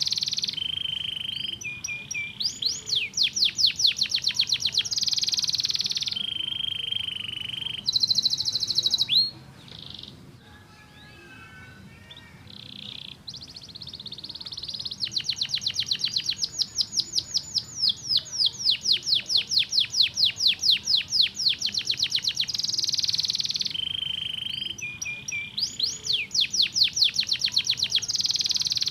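Domestic canary singing: rapid trills of fast repeated notes alternating with steady buzzy held tones. About nine seconds in, the song drops to a quieter, softer passage for a few seconds before the loud trills return.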